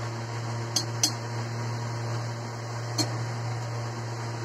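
Steady low hum with three short, sharp clinks of kitchen utensils: two close together about a second in, one about three seconds in.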